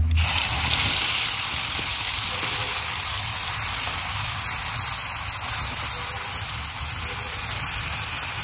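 Wet ground masala paste (red chilli, coriander, ginger, garlic, turmeric) dropped into hot oil with cumin in a kadai, sizzling at once and settling into a steady hiss that slowly eases.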